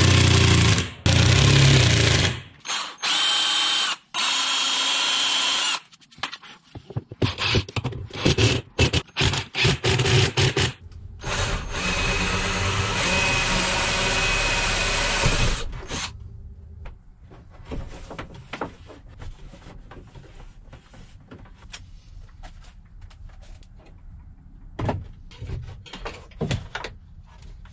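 Cordless drill running in bursts: a few long steady runs with a whine, broken by short stop-start pulses. After about sixteen seconds it gives way to quieter knocks and handling clicks.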